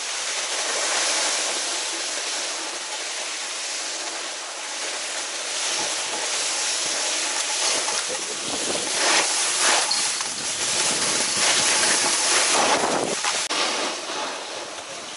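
Ski scraping and hissing over packed snow on a fast run, with wind rushing on the microphone; the scrape swells in several surges, loudest in the second half, as turns are carved.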